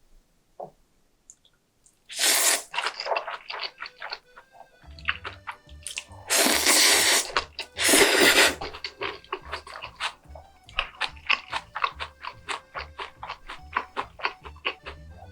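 Background music with a steady beat entering about five seconds in, over a few loud bursts of hiss and a run of quick clicks.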